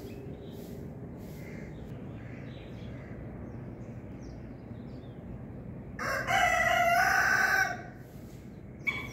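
A rooster crows once, about six seconds in: a single loud call lasting just under two seconds.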